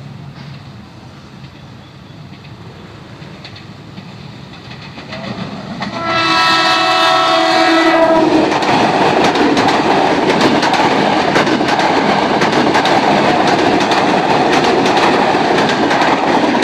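Electric commuter train approaching, its rumble building, then one horn blast of about two seconds a little past halfway. The train then passes close by, loud, with a rapid clatter of wheels over the rail joints.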